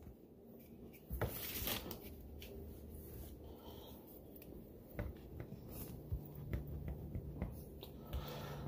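Knife slicing through a stack of corn tortillas on a plastic cutting board: soft scraping strokes with a few sharp clicks of the blade.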